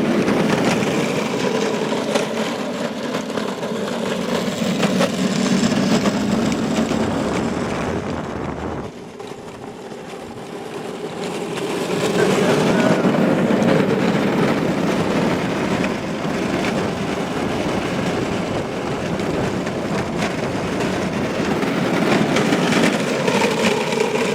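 Battery-powered ride-on go-kart driving along, its electric motor and wheels giving a steady rumbling whir. It goes quieter for a few seconds about nine seconds in, then picks up again.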